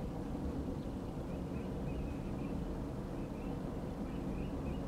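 Distant freight train of empty rock cars rolling past, a steady low rumble, with faint short high chirps over it from about a second and a half in.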